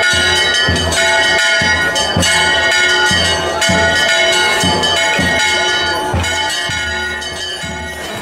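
Church bells ringing in a fast peal, struck about twice a second, each stroke ringing on into the next.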